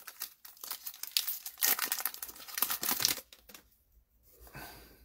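Plastic wrapper of a trading-card pack being torn open and crinkled by hand, in crackly bursts for about three seconds, then only a faint rustle.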